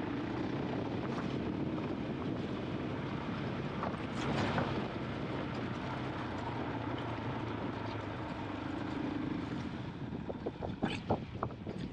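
KTM 500 EXC-F's single-cylinder four-stroke engine running at low, steady revs while riding. Near the end comes a run of irregular sharp knocks.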